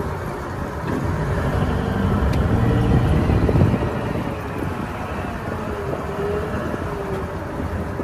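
Large wheel loader's diesel engine running as it carries a heavy stone block, a steady rumbling mechanical noise that swells a couple of seconds in, with a faint steady whine later on.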